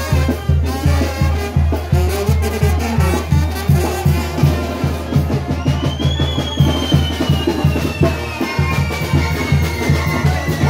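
Oaxacan brass band (banda de viento) playing festive music, with brass over a steady bass drum beat.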